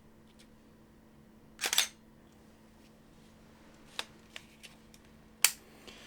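SLR camera shutter firing: a loud double clack about 1.7 s in, then a few faint clicks and a sharper single click near the end.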